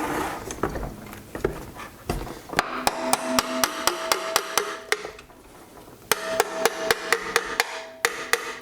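Rapid light hammer taps on metal engine parts, about five a second, with a ringing tone after each. There are two runs of tapping with a short pause between them.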